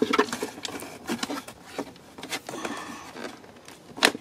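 Plastic trim in a Tesla Model Y's centre-console storage bin clicking and rattling as hands pull it free of its retaining clips, with scattered clicks and scraping and one sharp click about four seconds in.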